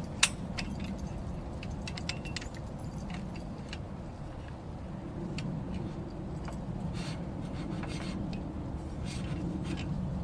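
Light metallic clinks and scrapes of handled saw and mill gear, with a sharp click just after the start. The chainsaw is not running.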